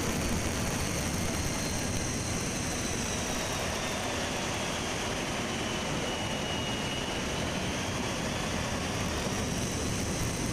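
Steady roar of a C-17 Globemaster's jet engines and rushing air through the open troop door, heard from inside the cargo hold, with a faint high whine that dips slightly in pitch midway and comes back up.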